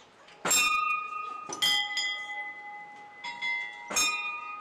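Metal bells or chimes struck four times, each strike a different pitch and each note ringing on and fading slowly over the next.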